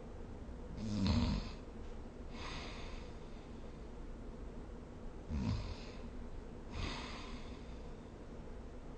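A sleeping person snoring: two snores on the in-breath, about four and a half seconds apart, each followed by a softer breathy out-breath. The first snore is the loudest.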